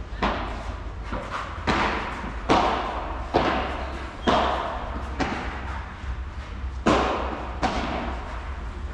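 Padel ball being hit back and forth in a rally: sharp pops of the ball off solid padel rackets and its bounces, about one a second, each with a short echo in the large covered hall.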